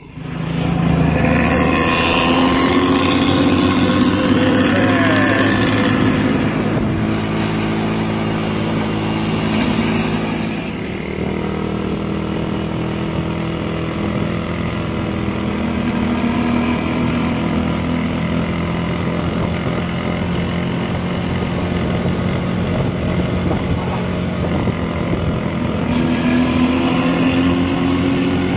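Intercity bus engine running through a modified 'ngorok' exhaust, a loud, deep, growling drone whose pitch rises and falls slightly as the bus drives.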